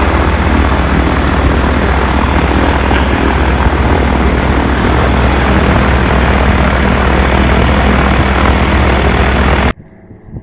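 Weight-shift microlight trike's engine and pusher propeller running, heard from the open passenger seat as a loud, steady low drone. It cuts off abruptly near the end.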